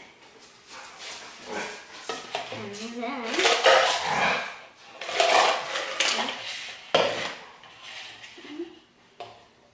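Carbonated soda being poured between plastic cups, with two fizzy, splashing pours in the middle. A cup is knocked down on the table about seven seconds in, with lighter clicks of cups being handled.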